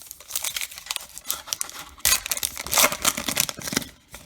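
A baseball card pack's wrapper being torn open and crinkled, louder from about two seconds in.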